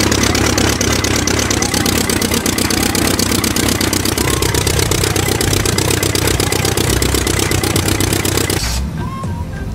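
Tractor engine running steadily with rapid, even firing pulses, cutting off abruptly near the end.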